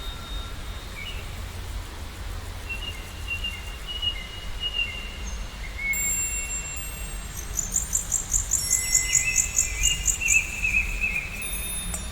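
Birds singing: short whistled notes and warbling trills, with a quick run of rapidly repeated high chirps in the second half, over a steady low rumble.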